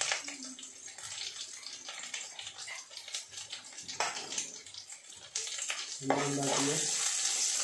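Sliced onions frying in a clay pot, a steady sizzling hiss with light knocks of a wooden spatula as they are stirred; the sizzle gets louder about five seconds in.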